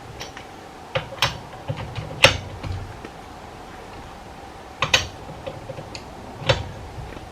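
Wrench tightening a car wheel's lug nuts: a handful of sharp metallic clicks and knocks spread across several seconds, with lighter ticks between.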